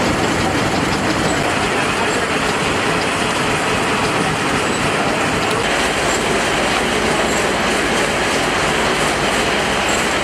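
Twin-cylinder Rumely 36-120 steam traction engine working under load, belted to a sawmill and running steadily together with the mill machinery. The low end grows fuller a little past halfway.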